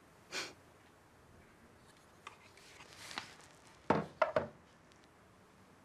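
Light handling noises, then about four seconds in a picture frame is set down on a wooden dressing table with a few quick knocks.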